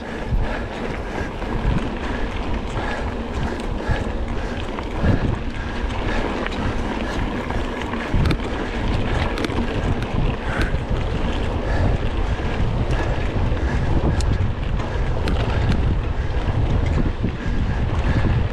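Wind rushing over a mountain biker's camera microphone while riding at speed, with a few knocks and rattles from the bike over rough ground.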